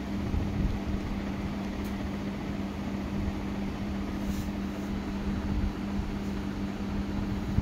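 Juki industrial sewing machine running, its motor humming steadily while a seam is stitched along the pant's waistband.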